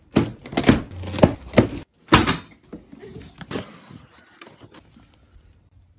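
Plastic strapping being cut off a cardboard shipping box and the box being handled: a run of scrapes and knocks for about two seconds, a sharp knock just after, then a few lighter clicks that die away.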